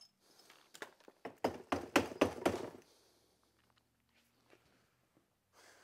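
A quick series of knocks and thumps lasting about two seconds, starting about a second in.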